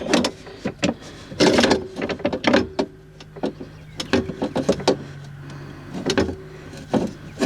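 Knocks and clatter of a Tesla Model S window regulator and its motor being worked into place inside the door, with a low steady hum underneath.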